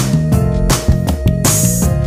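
Background music with a steady beat: drums, bass and guitar.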